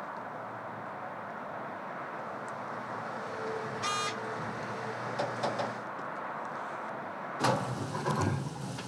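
A steady low rumble of background noise, with a brief click and short tone about four seconds in. Near the end it changes abruptly to louder, uneven knocking and handling sounds.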